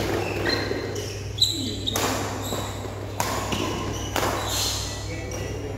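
Badminton doubles rally: about four sharp racket hits on the shuttlecock, roughly a second apart.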